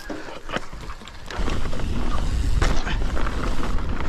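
Wind buffeting the helmet or bike camera's microphone as a mountain bike rolls down a dirt trail, tyre noise and the rumble growing louder about a second and a half in, with scattered knocks and rattles from the bike over the rough ground.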